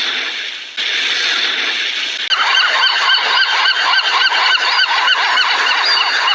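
A flock of birds calling together, a dense chorus of many short, overlapping calls starting about two seconds in, after a stretch of steady noisy hiss.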